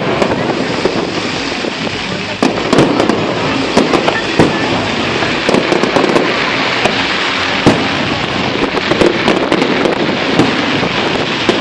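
Aerial fireworks going off in a continuous barrage: many sharp bangs and crackles, some in quick clusters, over a steady crackling hiss.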